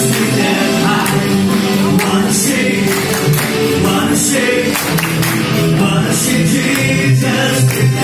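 Live rock band music: a man singing into a microphone over electric guitar, keyboard and drums, with regular cymbal strokes.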